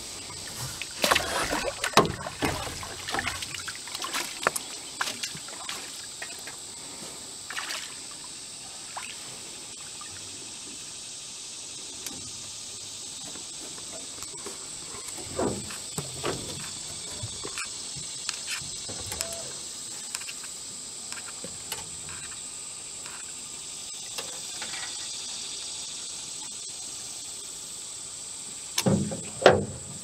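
Water splashing and sloshing as a landing net works a hooked fish beside an aluminium boat, busiest in the first few seconds, with scattered knocks and a loud thump near the end. A steady high-pitched insect buzz runs underneath.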